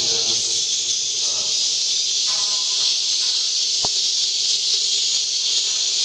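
A steady, high-pitched hiss of swiftlet twittering from edible-nest swiftlets, mixed with the recorded swiftlet call played on a sound system to lure the birds in. A single sharp click comes about four seconds in.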